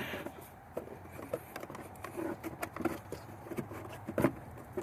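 Handling noise of a pleated paper panel air filter being worked into a plastic airbox: scattered small scrapes, rustles and clicks of filter and housing, with a louder knock about four seconds in.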